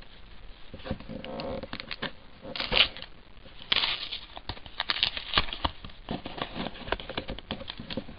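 Hands tearing open and crinkling a trading card pack wrapper: a run of crackles and rustles, with two louder tearing bursts about two and a half and four seconds in.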